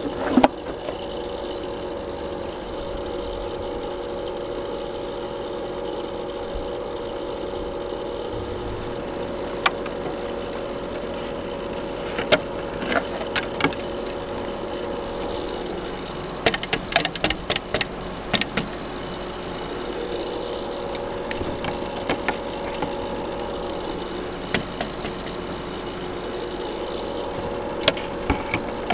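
Pool filter pump motor humming steadily, with scattered sharp clicks and taps, a quick cluster of them about halfway through.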